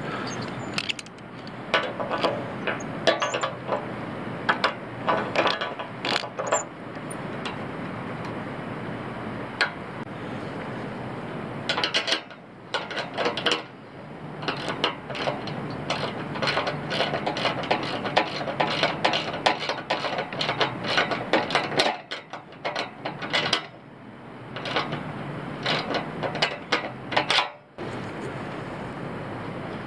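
Hand socket ratchet wrench clicking in repeated quick bursts, with clinks of metal tools, as a bolt is tightened.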